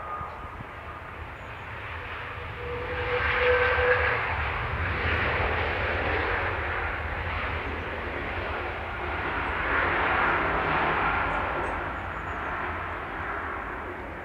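Jet2 Airbus A330's twin jet engines running as the airliner rolls along the runway. It is a broad, steady jet rumble that swells about three seconds in and again around ten seconds in, with a faint whine over it.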